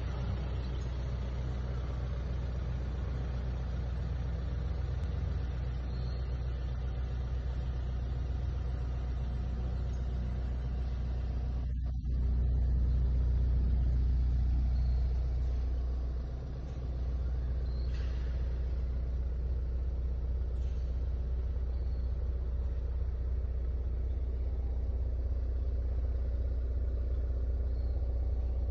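The 2017 Hyundai Santa Fe's 2.0-litre R diesel engine idling, a steady low hum heard inside the cabin. The hum grows louder about twelve seconds in, then eases back and dips briefly about four seconds later.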